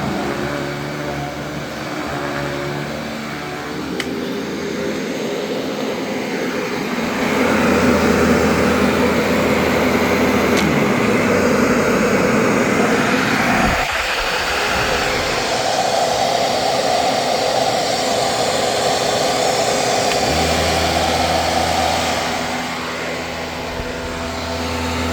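Panasonic Performance Plus MC-6357 upright vacuum cleaner running. Its tone and loudness shift several times: it gets louder about seven seconds in, dips briefly about halfway through, and changes again a few seconds before the end.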